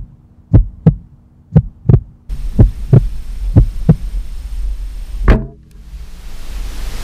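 Heartbeat sound effect: slow, paired low thumps, lub-dub about once a second. From about two seconds in, a steady rushing noise runs under the beats. Just after five seconds a heavier thump comes, and then the beating stops.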